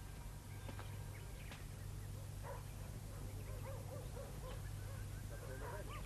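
Faint animal calls, short and repeated, thickest in the second half, over a steady low hum.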